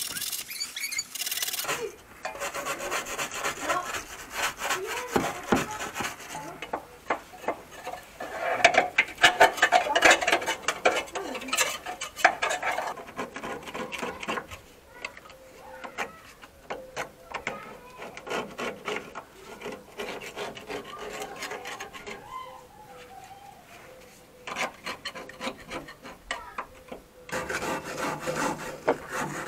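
Hand brush scrubbing rust off a car's steel underbody in fast, uneven back-and-forth scraping strokes, loudest a third of the way in and easing off for a moment before picking up again.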